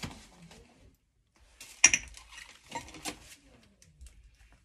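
Hard household items clinking and knocking as a box of them is rummaged through, with one sharp clink a little under two seconds in and a few lighter knocks around three seconds.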